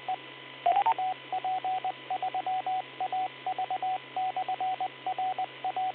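Morse code over a two-way radio channel: a single steady tone keyed on and off in groups of dots and dashes, the repeater sending its identification in CW as the station's turn ends.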